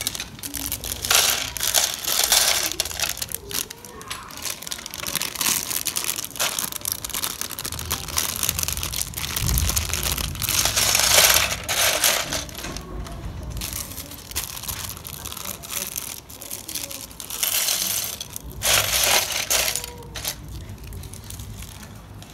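Loose Lego bricks clattering as they are poured from a crinkling plastic bag into a plastic storage box and stirred by hand, in several irregular bursts, the loudest near the middle and again near the end.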